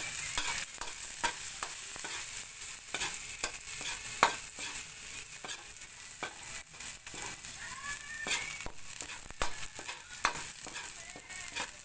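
Chopped garlic sizzling in hot oil in a wok, frying toward brown, while a metal spoon stirs it, scraping and clicking against the pan with one sharper clack about four seconds in.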